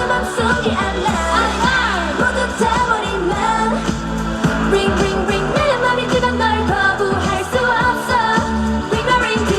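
K-pop dance-pop song with female vocals, playing loud and continuous.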